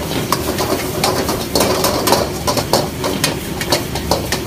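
Metal ladle knocking and scraping against a steel wok as noodles are tossed and stir-fried, in quick irregular clanks over a steady low roar.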